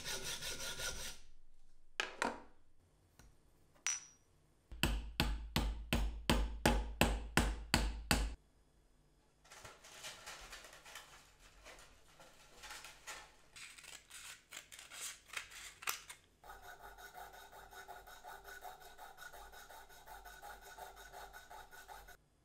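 Hacksaw sawing through a metal tube held in a vise, in bursts of strokes; the longest run is about eleven strokes at roughly three a second, a few seconds in. Lighter, quicker rasping strokes follow, then a steady whir over the last few seconds.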